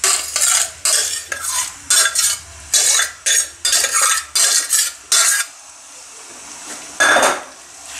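Freshly cooked grated carrots being stirred and scraped around a non-stick kadhai in hot ghee, with a light sizzle under it: short strokes about twice a second that stop about five and a half seconds in, then one more stroke near the end.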